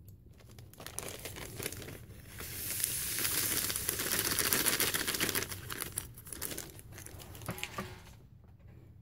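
Crinkling and rustling of a small MRE sugar packet and a plastic hot-beverage bag as the sugar is shaken into the bag. It is loudest in the middle few seconds and ends with a few light taps.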